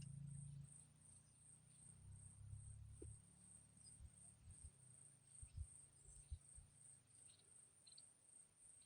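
Faint, high-pitched insect trill pulsing steadily a few times a second, over a low rumble with a few soft thumps in the middle.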